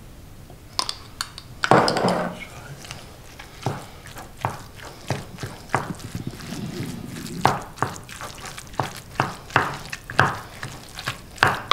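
Wooden spoon stirring raw minced meat in a ceramic bowl, knocking against the bowl's side again and again, roughly one to two knocks a second.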